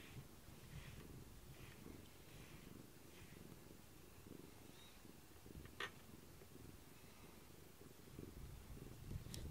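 Cat purring low and steady close by as it is stroked, with a single short click a little past the middle.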